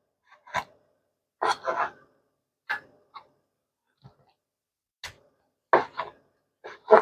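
Chef's knife striking a plastic cutting board while slicing raw chicken breast: about ten short knocks at uneven intervals with pauses between, a couple drawn out like the blade scraping across the board, the loudest near the end.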